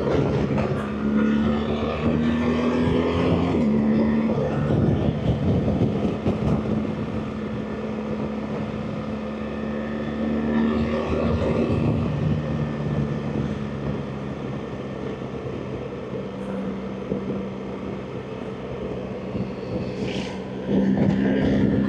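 BMW R 1300 GS Adventure's boxer-twin engine running while riding, with wind and road noise. The engine note holds steady and shifts in pitch a few times, eases off through the middle and comes back louder near the end.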